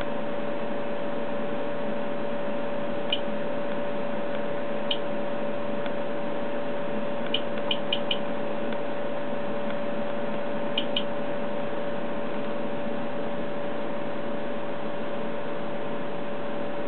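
HP 53310A modulation domain analyzer running with a steady hum and hiss that carries a constant mid-pitched tone, typical of its cooling fan. Short sharp clicks of front-panel keys being pressed break through it: one about three seconds in, another near five, four in quick succession around eight, and a pair near eleven, as the self-test menu is called up and the test started.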